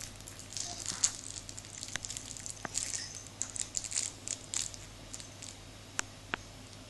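Rustling and crinkling with a few sharp clicks as a baby handles a small toy in her hands.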